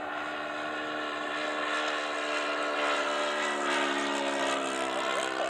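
Engine of a 1.6 m radio-controlled Spitfire model running in flight, a steady propeller drone that grows louder a couple of seconds in as the plane passes close overhead.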